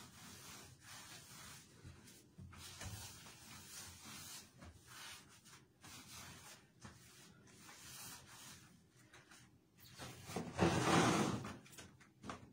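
Rubbing, scraping and handling noises from a bathroom washbasin being cleaned with gloved hands. About ten seconds in there is a louder rushing noise that lasts a second or so.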